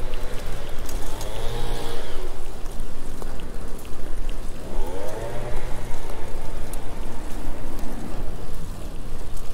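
Steady rushing wind and road noise on a bicycle-mounted GoPro's microphone while riding, with scattered light ticks. Motor vehicles pass twice, a humming swell near the start and another a little after the middle.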